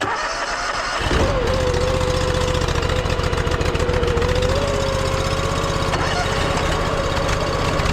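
Engine of an 8-gallon-per-minute pressure washer starting up: it catches about a second in and then runs steadily.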